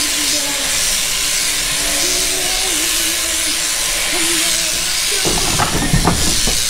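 Electric sheep-shearing handpiece running steadily with a hissing buzz as it clips the fleece. About five seconds in, a short burst of knocks and clatter on the trailer's wooden shearing board.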